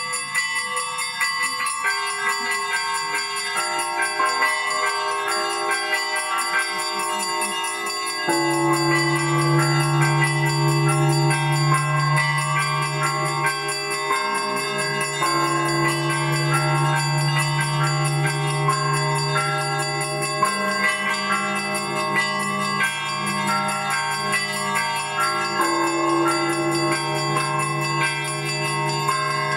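Russian Orthodox church bells rung by a bell ringer: a dense, quick pattern on the small bells, with deep bass bells coming in about eight seconds in and sounding under them for the rest.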